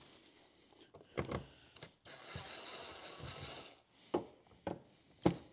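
Screwdriver work on a kei truck's interior door trim: a handful of sharp clicks and knocks, with about a second and a half of rapid clicking starting about two seconds in, as the door pull's Phillips screws are worked loose.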